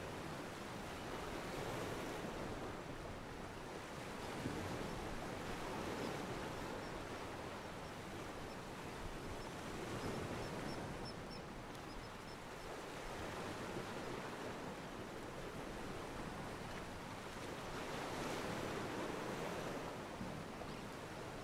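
Ocean water washing at a pier, from a stock ambience recording: a steady rush of water that swells and eases every few seconds.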